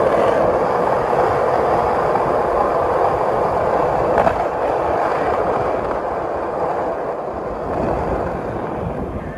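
Skate wheels rolling on street pavement, a steady rumbling hiss that eases off over the last few seconds. There is a single brief click about four seconds in.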